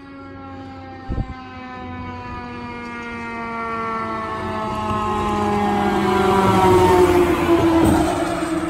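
Fire truck's Federal Q mechanical siren winding down, its pitch falling slowly and steadily, while the truck approaches and passes. The truck's engine and road noise build up and are loudest near the end.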